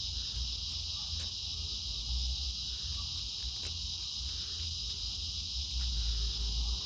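Steady high-pitched chorus of insects, likely crickets, with a low rumble underneath and a few faint clicks.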